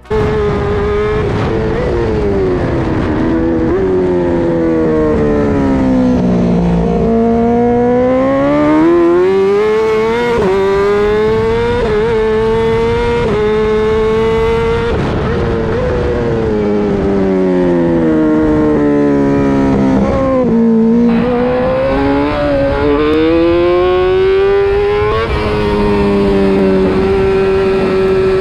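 Honda Fireblade inline-four sportbike engine at full track pace. Its pitch climbs under acceleration, then drops away under braking into corners, several times over, with a steady rush of wind and road noise.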